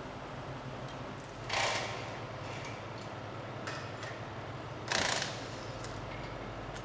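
Metal clanking and clattering from the dismantling of a railway level crossing: two louder crashes about three seconds apart among lighter clicks and knocks, over a steady low hum.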